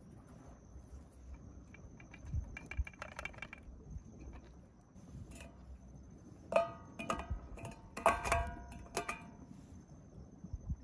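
Metal camp plates clanking and ringing as they are set down and shifted on the campfire coals, a few soft knocks early and a cluster of sharp clinks about two-thirds of the way through.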